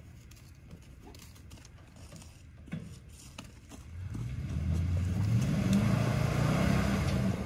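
A vehicle engine revving hard under load during the recovery pull of a Jeep stuck deep in mud. It swells in about four seconds in, its pitch climbing and dropping as the throttle rises and eases.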